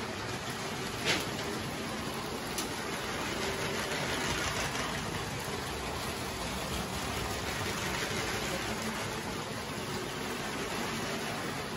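Several motorized Lego trains running on plastic track: a steady whir and rattle of their motors and wheels, with a sharp click about a second in.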